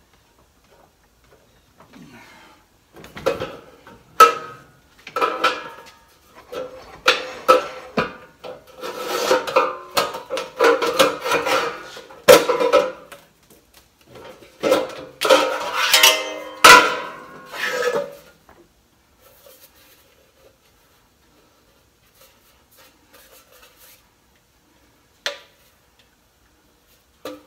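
Thin 20-gauge sheet metal clanking, scraping and ringing against a combination shear, brake and slip-roll machine as a box is bent and shifted on the brake: a run of irregular knocks and rattles for about fifteen seconds. After that it goes mostly quiet, with a single sharp click near the end.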